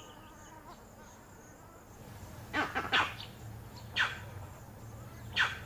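Vervet monkeys giving alarm calls at a leopard: about five short, sharp calls starting about two and a half seconds in, over faint insect and bird sounds.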